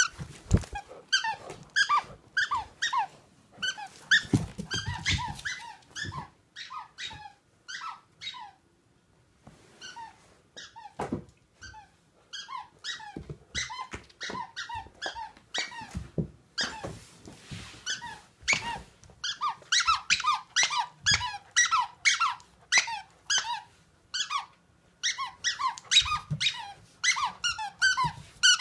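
Squeaker in a plush squirrel toy squeaking over and over in quick runs as a black Labrador puppy chews it, with a few short pauses and the odd thud.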